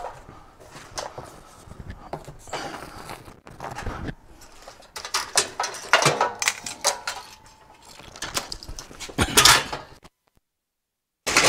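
Scraping, rubbing and knocking of a Kenmore top-load washer's plastic outer tub as it is worked loose and tilted up off its metal base. The sound cuts out abruptly about a second before the end.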